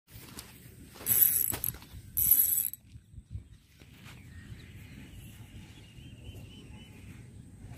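Spinning reel's drag ratcheting in two short bursts about a second apart as a hooked fish pulls line off the spool.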